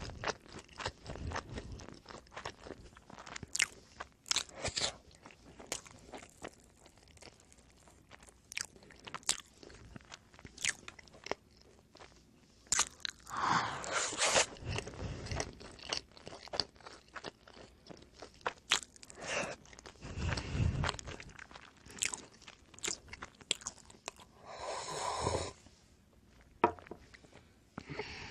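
Close-miked eating of oven-baked pizza bread: many short crisp crunches from biting and chewing, with a few heavier bites and a brief rustle near the end.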